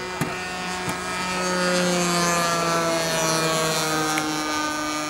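Single-cylinder two-stroke DLE 20 petrol engine of a radio-controlled Spacewalker model airplane running in flight. The engine note swells to its loudest about two seconds in and its pitch falls slowly throughout.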